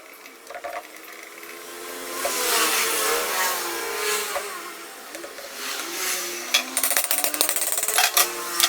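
A motor whose pitch wavers up and down in the middle, then a run of sharp metallic clicks and knocks near the end, as of tools and gearbox parts being handled.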